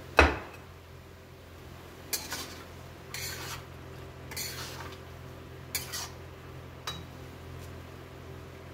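A sharp metal clank just after the start, then a metal spatula scraping and stirring potatoes in a steel kadhai, five strokes about a second apart.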